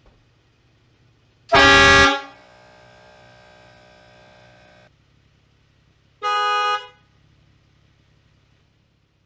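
Horns of a Jeep Wrangler sounded in turn, the air-powered train horn and the factory horn. About a second and a half in comes a very loud horn blast of many tones at once, which drops to a much quieter held chord until about five seconds. A shorter, less loud single honk follows about six seconds in.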